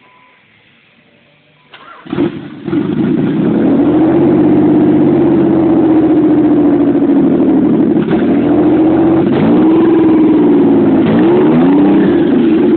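Nissan 300ZX twin turbo's VG30DETT V6 started for the first time after a transmission rebuild: it cranks and catches about two seconds in, settles into a steady idle, then is blipped a few times near the end, the pitch rising and falling.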